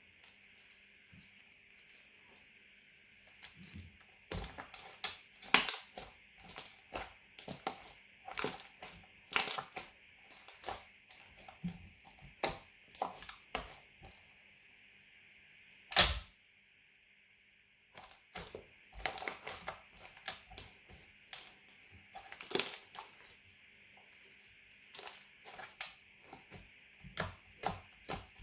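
Glitter slime being squeezed and worked by hand, giving irregular sharp clicks and pops as trapped air bursts, over a faint steady hiss. The loudest pop comes about sixteen seconds in, followed by a short silence.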